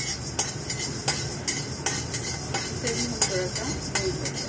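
A flat steel spatula scrapes and clinks against an iron kadhai as dry sago pearls are stirred and roasted, giving irregular scrapes and knocks a few times a second.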